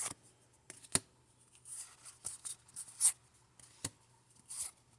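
Pokémon trading cards being handled while looking through a freshly opened pack: a few brief swishes of cards sliding over one another and some sharp clicks as cards are flicked or tapped together.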